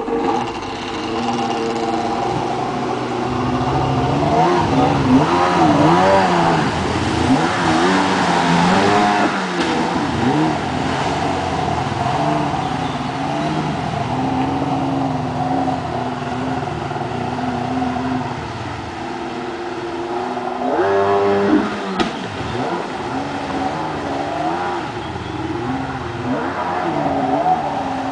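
Kawasaki 800 SX-R stand-up jet ski's two-stroke twin engine running, its pitch rising and falling again and again as the throttle is worked. About three quarters of the way through it revs up steeply.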